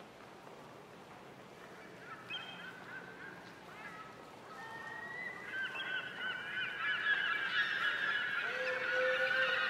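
A flock of birds calling: many short, overlapping calls that start about two seconds in and grow louder and denser toward the end.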